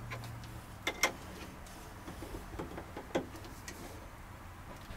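Adjustable wrench working the compression nuts off a brass T-fitting: a few sharp metal clicks and ticks, the loudest about a second in and another about three seconds in.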